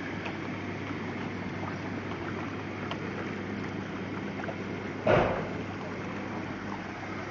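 Hydromassage bathtub pump motor running with a steady hum over churning water. A single loud knock comes about five seconds in.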